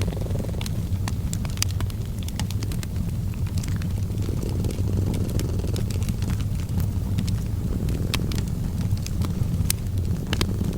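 A cat purring in a steady low rumble, with a fireplace crackling over it in scattered sharp snaps and pops.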